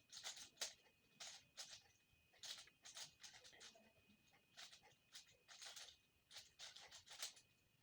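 Faint plastic clicks and rasps of a 5x5 Rubik's cube's layers being turned, in quick irregular runs.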